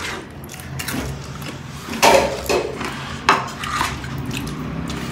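A rice paddle scraping and knocking against a metal rice pot as rice is scooped out, with clinks of dishes: several separate scrapes and knocks, the loudest about two seconds in.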